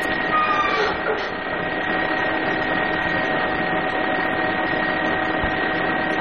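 Steady hiss of recording noise with a constant electrical hum and a thin high whine, with a few faint short squeaks about a second in.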